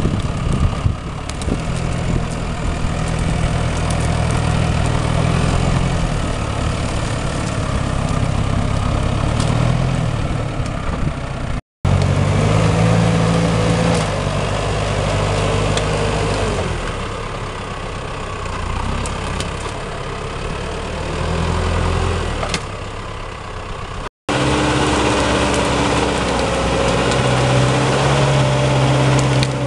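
Valtra forestry tractor's diesel engine working as it hauls a loaded log trailer through deep mud, the revs rising and falling, and dropping away near the end. The sound breaks off for an instant twice.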